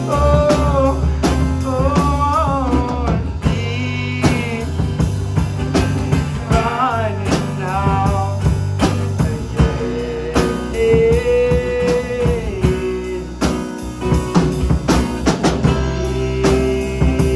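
Live band playing a rock song: a man singing over strummed acoustic guitar and a drum kit, with a long held sung note about two-thirds of the way through.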